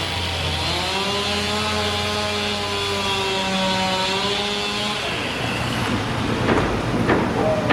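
A motor running with a steady pitched hum that sags slightly and then recovers over about four seconds before fading. A few sharp knocks follow near the end.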